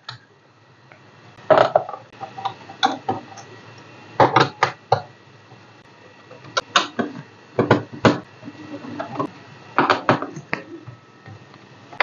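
Irregular small clicks and clatters as a screwdriver works out the screws on the plastic bottom cover of a Dell Vostro 15 3568 laptop, with light taps from the screws and the case being handled.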